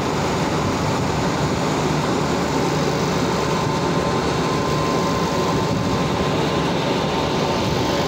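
Industrial machinery of a boiler's wet scrubber and slurry handling plant running: a steady mechanical noise with a faint, thin whine held over it.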